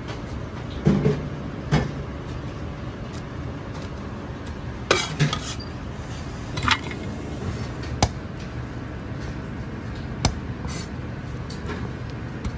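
Chinese cleaver knocking on a white plastic cutting board: about eight scattered chops and taps at irregular intervals, over a steady low rumble.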